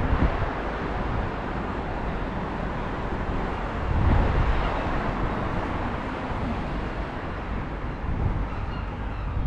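Wind buffeting the microphone: a steady rumbling roar that swells and dips, with a stronger gust about four seconds in.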